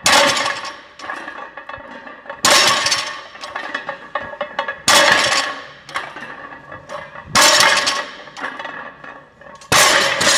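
A barbell loaded with three plates a side clanking down onto the floor at the dead stop of each explosive bent-over row: five heavy metal-on-floor impacts about two and a half seconds apart, each ringing on briefly.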